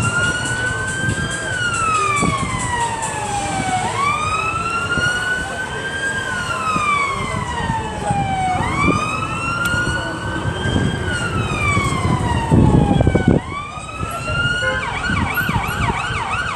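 An emergency-vehicle siren wailing: each cycle climbs quickly and then falls slowly, repeating about every five seconds, and near the end it switches to a rapid yelp. A low rumble runs underneath, briefly louder just before the switch.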